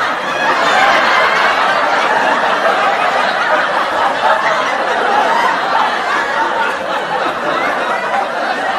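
Several people talking and laughing over one another in a steady, dense babble.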